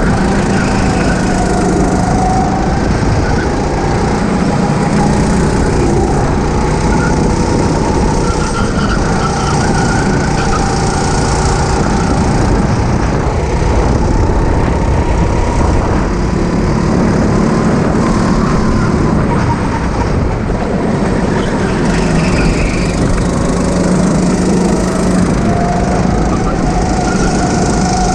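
Go-kart engines running, their pitch rising and falling with the throttle over a loud, dense rumble of noise.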